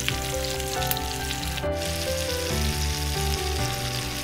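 Banana-leaf-wrapped fish parcels sizzling in coconut oil in a frying pan, under background music of held notes that change every second or so.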